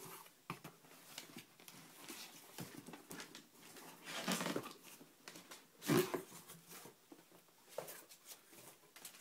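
Cardboard rustling and scraping as a boxed camera is slid out of its cardboard shipping carton and set down, with louder scrapes about four and six seconds in.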